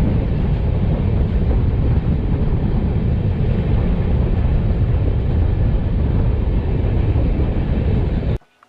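A train passing close by: a loud, steady rumble and rattle that cuts off suddenly near the end.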